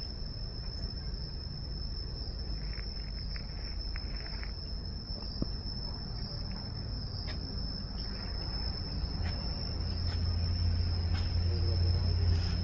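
Insects droning in the forest with one steady, unbroken high-pitched tone. Over the last few seconds a low rumble grows louder.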